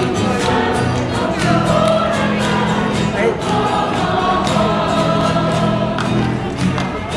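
A choir singing a sacred song, many voices holding long notes over steady low accompanying notes.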